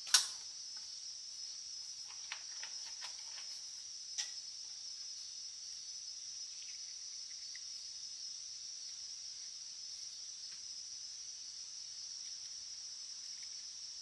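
A steady high-pitched hiss with a sharp click right at the start and a few lighter clicks over the next four seconds.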